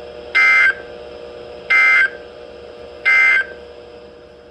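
Three short bursts of EAS end-of-message data tones (the SAME digital code) from a weather alert radio, each about a third of a second long and about 1.4 seconds apart, marking the end of the alert. A steady faint hum lies underneath.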